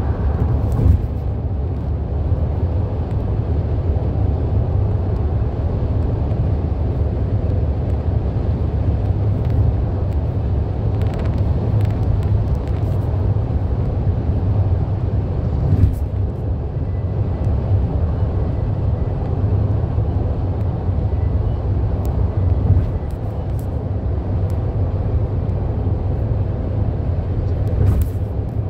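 Steady low rumble of road, tyre and engine noise heard inside a car's cabin while driving on a freeway, with a few brief clicks.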